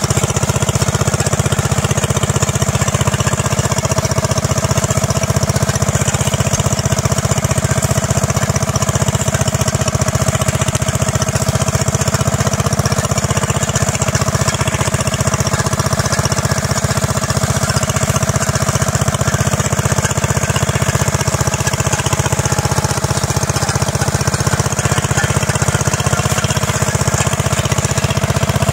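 Wheel Horse Suburban garden tractor's 6 hp Tecumseh single-cylinder engine running steadily.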